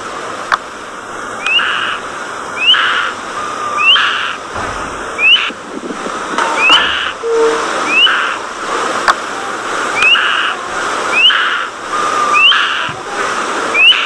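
A flock of budgerigars chattering and warbling, with short upward-sliding whistles repeating about once a second over the dense chatter.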